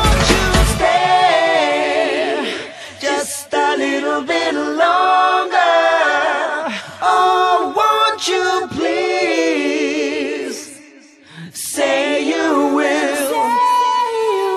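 Pop song in a vocal breakdown: the beat and bass cut out about a second in, leaving layered singing voices almost unaccompanied.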